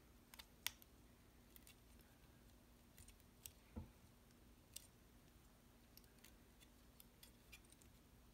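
Faint, scattered clicks of plastic LEGO bricks being handled and pressed together, with one duller knock a little under four seconds in.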